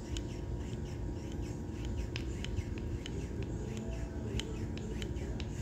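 Repeated short, high squeaks, two or three a second, from a rebuilt 2008 Harley-Davidson Fat Bob front brake master cylinder as its lever is pumped by hand to push fresh brake fluid through the bore. There is a low steady hum under the squeaks.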